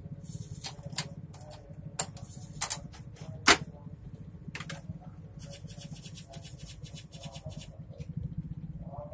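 Sharp plastic clicks and knocks from handling a Canon inkjet printer with its cartridge reseated. The loudest knock, about three and a half seconds in, comes as the top cover is shut. Then comes a rapid run of fine ticking for about two seconds, all over a steady low hum.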